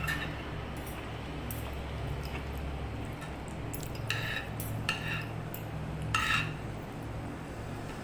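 Cutlery clinking against a plate during a meal: small clicks, then three short ringing clinks a second or so apart, about four seconds in, over a steady low hum.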